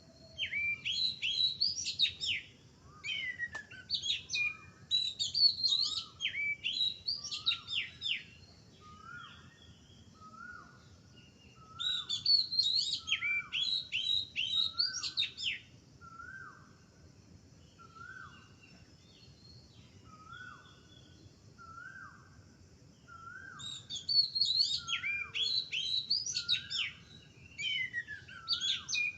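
Small birds chirping in three bursts of rapid, high, sweeping chirps. Between and under the bursts, a lower short call repeats about once a second.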